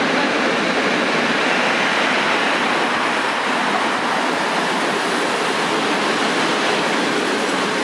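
Electric-locomotive-hauled passenger train arriving alongside the platform, its coaches rolling close past: a steady, even rushing noise of wheels on rail.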